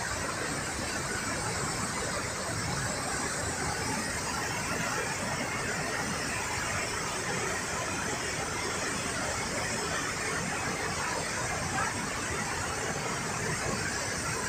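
Steady rush of water from a river's falls and rapids, swollen by heavy rain.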